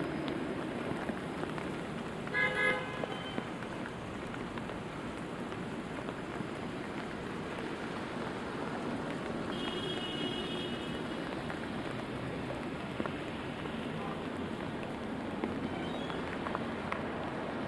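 Steady rainfall with city traffic going by. A car horn gives two short toots about two and a half seconds in, and a fainter high tone sounds around ten seconds.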